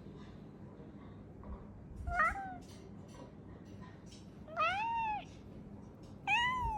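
Siamese cat meowing three times: a short chirpy call, then two longer meows that rise and fall in pitch.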